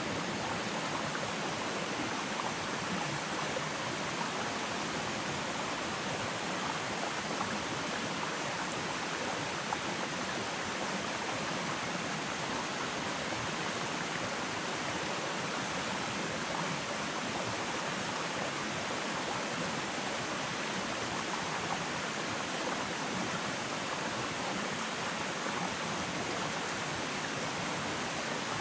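Steady rush of a stream flowing over rocks.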